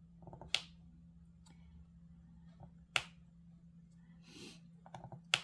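Diamond painting drill pen picking up resin drills from a tray and pressing them onto the canvas: light rattles of drills, each followed by a sharp click, three clicks about two and a half seconds apart. A steady low hum runs underneath.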